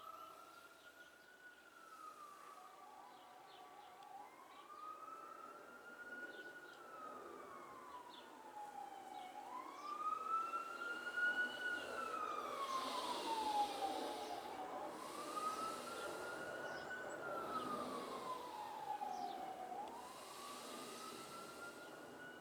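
Emergency vehicle siren wailing, its pitch sweeping slowly up and down about every five seconds. It grows louder through the middle, with a rushing noise under it, and eases off near the end as it passes.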